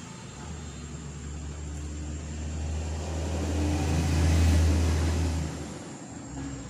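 A motor vehicle passing by: its engine grows louder to a peak about four and a half seconds in, then fades away.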